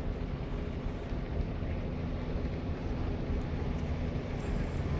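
Steady low rumble of distant vehicle engines, with a faint even hum running under it.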